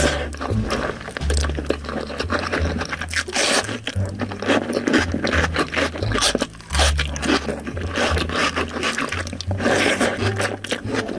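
Close-miked eating: chewing and wet smacking of dal and rice with mashed potato, a dense run of small moist clicks and squelches.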